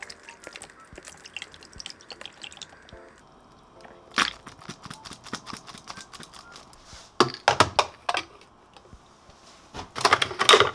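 Oat milk poured from a carton into a glass of ice. Then come sharp knocks and clicks: one about four seconds in, a few around seven seconds, and a dense run near the end as a capsule espresso machine's lid is lifted.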